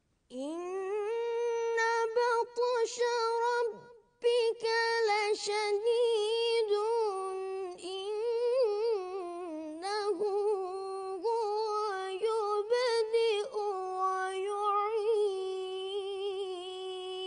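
A boy reciting the Quran in the melodic, drawn-out majlisi (mujawwad) style: long held notes in a high voice, ornamented with wavering turns. There is a brief pause for breath about four seconds in.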